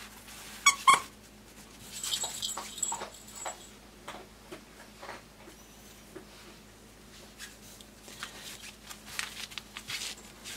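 A Pembroke Welsh Corgi puppy just under four weeks old whimpers, a short high call in two quick pulses about a second in. Scattered light rustling and knocks follow.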